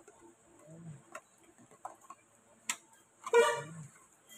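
Light clicks and taps of a cardboard phone box and plastic packaging being handled on a glass counter, with a sharp click a little before three seconds in and a brief louder sound just after.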